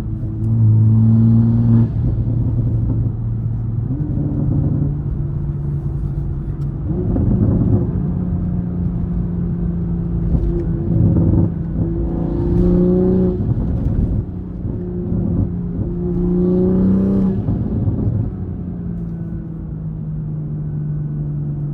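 A 2021 Toyota Supra's turbocharged engine, with a catless downpipe and single-exit exhaust, pulling under acceleration. Its pitch climbs and then jumps at each of several gear changes, with rougher, noisier stretches a few times along the way.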